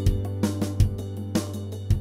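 Background music with a steady drum beat over bass and sustained instrument tones.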